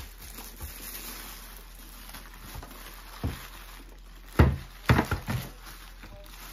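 Plastic wrapping rustling faintly as it is pulled off an Instant Pot blender's motor base, then a knock and a quick cluster of hollow thumps as the base is handled and set down on the table, the first thump the loudest.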